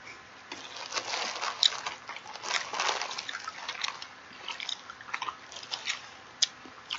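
Added sound effect of a person chewing food: irregular wet smacks, clicks and crunches, busiest in the first few seconds.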